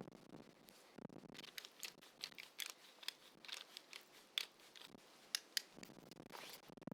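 Pepper mill grinding black pepper: faint, irregular crackling clicks, with a few sharper ticks past the middle.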